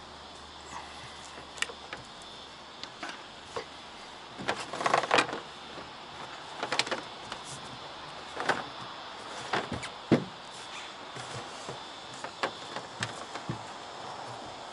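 Irregular knocks, thumps and scuffs of a person crawling across a bus roof on hands and knees, with an orbital sander and its extension cord being shifted about; a cluster of louder knocks about five seconds in. The sander is not running.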